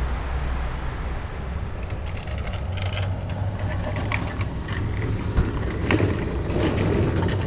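Outdoor background ambience: a steady low rumble and hum, with scattered small clicks and clatter starting about two seconds in.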